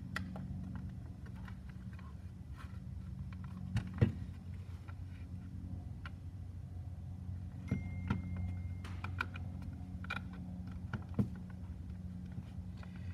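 Plastic housing of a ToolKitRC M4Q battery charger being handled and pressed back together: scattered clicks and light knocks, the sharpest about four seconds in. A steady low hum runs underneath.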